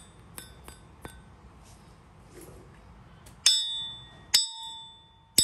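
Small steel shoemaker's stake anvil being tapped with metal: a few light clinks, then three sharp strikes about a second apart, each leaving a clear, lingering ring of several tones, the ring of steel.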